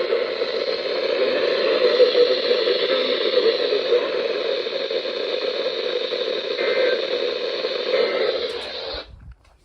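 Steady radio static hiss from a radio receiver with no programme on the channel, which cuts off abruptly about nine seconds in.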